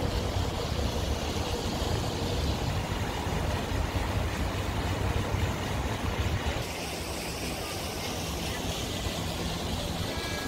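Steady street ambience: rushing water from an ornamental fountain mixed with passing car traffic. A low rumble under it drops away about seven seconds in.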